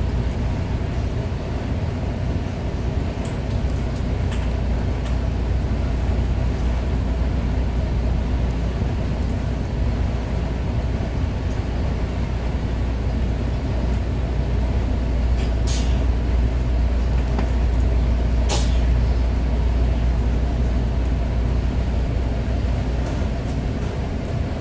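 Steady low rumble of a standing MARC diesel commuter train, heard inside the coach. Twice, a few seconds apart past the middle, a short sharp hiss of air from the brakes.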